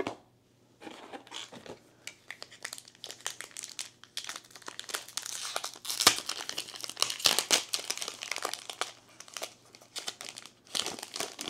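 Foil trading-card booster pack wrapper crinkling as it is handled and torn open, loudest about halfway through at the tear, then rustling as the cards are pulled out near the end.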